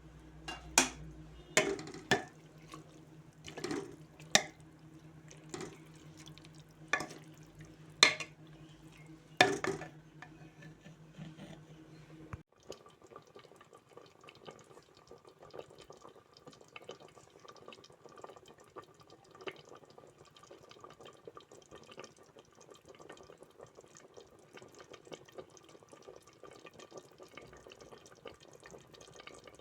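Kitchen sounds: about a dozen sharp knocks and clinks of dishes or utensils over a low steady hum, then, after a sudden cut about twelve seconds in, a faint steady noise of water from a tap or sink.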